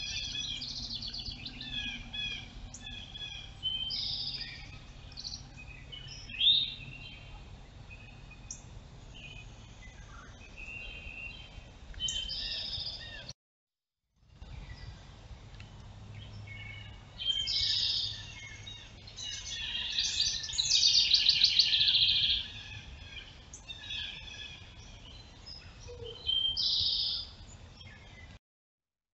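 Several songbirds singing and chirping in woodland, many short overlapping songs and trills, over a low steady hum; the sound cuts out for under a second about halfway through.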